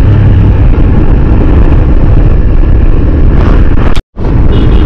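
A Hero Xtreme motorcycle underway, with wind buffeting the microphone as a loud steady rumble. The sound cuts off abruptly about four seconds in.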